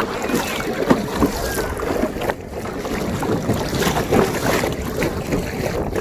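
Water splashing and sloshing around a kayak out on the sea, with wind buffeting the microphone.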